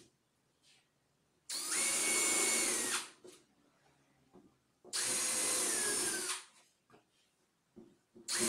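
Cordless drill boring holes through a board in short runs of about a second and a half. It runs twice, then starts again near the end, and each run ends with the motor whine dropping in pitch as the trigger is let go.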